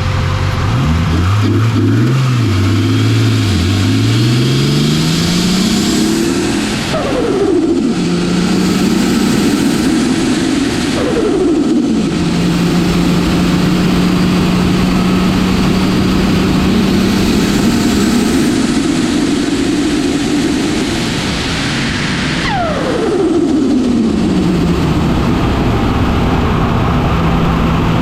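Turbocharged Nissan RB25DET inline-six in an S15 Silvia revving: its pitch wavers and climbs in the first few seconds, then three times drops sharply as revs fall, and holds at steady revs for long stretches in between.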